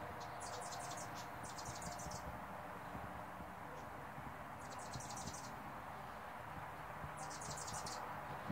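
Hummingbird's high-pitched chattering call: four short bursts of rapid chips, each under a second long, over steady background noise. It is the kind of chatter hummingbirds make while chasing rivals away from a feeder.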